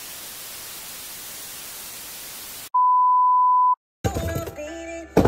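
Television-style static hiss for about two and a half seconds, cut off by a loud, steady one-second beep tone, then a brief silence before music starts about four seconds in.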